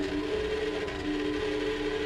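Newly installed 12-volt boat live well / washdown pump running steadily, a continuous motor hum with a couple of steady tones. It is switched on for a dry test with no water supply, to check that the motor turns.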